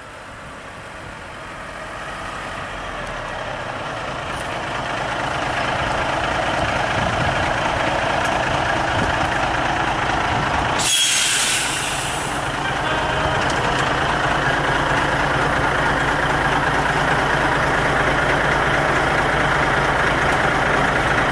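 Kenworth semi-truck's diesel engine running, growing louder over the first several seconds as the truck comes closer. About eleven seconds in, a loud air-brake hiss lasting a second or so, then the engine runs on steadily.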